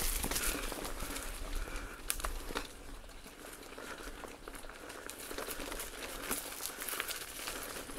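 Mountain bike riding over a dirt trail strewn with dry leaves: irregular crunching and crackling from the tyres, with scattered clicks and rattles from the bike. It is louder for the first couple of seconds, then eases.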